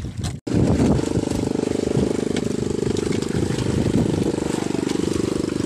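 A small engine running steadily with a fast, even throb.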